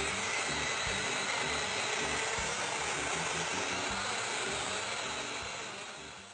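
Small battery-powered portable blender running steadily, its blade whirring through a thin mix of apple, orange and kiwi with added water. It fades out near the end.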